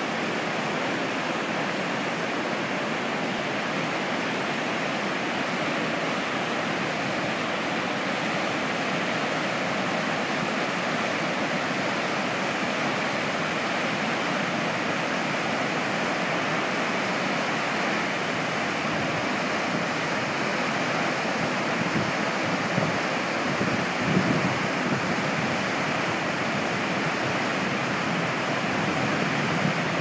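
Niagara River whitewater rapids running fast through the narrow gorge, big standing waves breaking: a steady, unbroken rush of white water.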